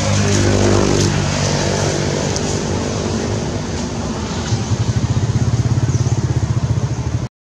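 A motorbike engine running steadily. Its pitch falls a little in the first second or so, it settles into a rapid, even throb from about four and a half seconds in, and the sound cuts off suddenly just before the end.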